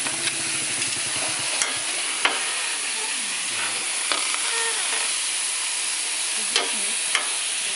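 Pieces of meat on the bone sizzling and frying in a hot aluminium pot on a wood stove, a steady hiss broken by a few sharp clicks and knocks as more pieces go in and are moved about.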